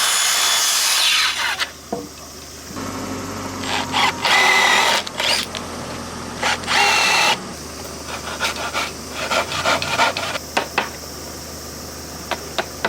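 A power drill running in three short bursts, its motor whining, followed by a run of scattered sharp knocks of work on the timber frame.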